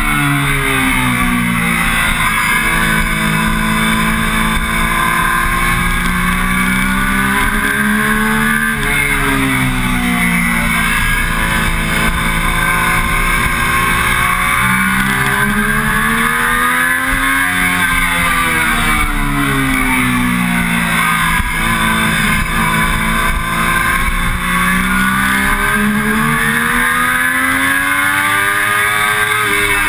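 Triumph Daytona 675's three-cylinder engine under way at track speed. The engine pitch climbs and falls back three times as the rider accelerates and eases off, with a sharper drop about nine seconds in and again at the very end.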